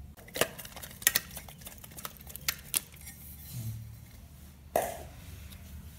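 A steel knife and an aluminium pressure-cooker pot knocking against each other and a steel plate: about half a dozen sharp metal clinks, with a fuller knock near the end, as the set pudding is cut and tipped out in pieces.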